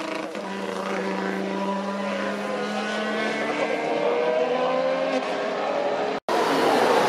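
Formula 1 car running on track, its Honda 1.6-litre turbocharged V6 hybrid engine note sliding down and back up in pitch through the corners. The sound cuts out for a moment about six seconds in, then the engine note resumes.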